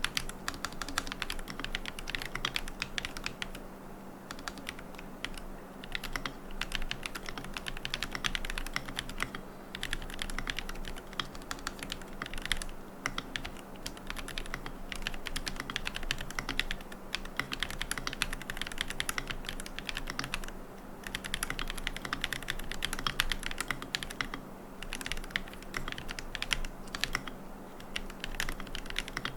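Steady typing on a QK75N mechanical keyboard with Gateron Moon Landing switches, a carbon plate, no foam and MilkyWay Poker keycaps: rapid keystrokes with short lulls every few seconds.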